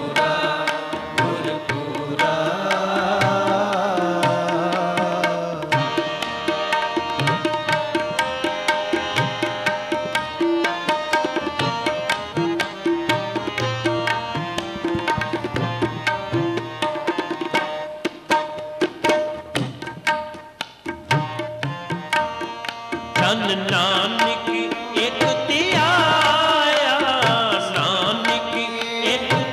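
Gurbani kirtan: harmoniums holding steady chords with tabla strokes and a male voice singing. The singing drops out through the middle, where harmonium and tabla carry on, and comes back strongly about three-quarters of the way in.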